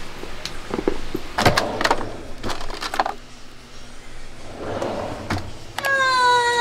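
A string of short clicks, knocks and rustles from things being handled, then near the end a small dog's long, high whine that slides slightly down in pitch.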